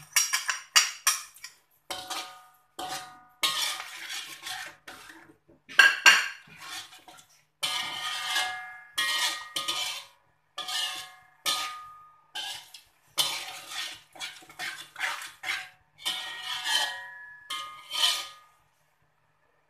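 Slotted metal spatula scraping and knocking against a metal wok as it stirs a wet spice paste, in uneven strokes with a short metallic ring; the stirring stops near the end.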